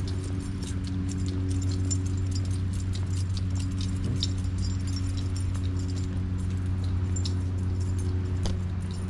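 Walking with a handheld camera on a concrete sidewalk: light, irregular clicks and taps from footsteps and camera handling over a steady low hum.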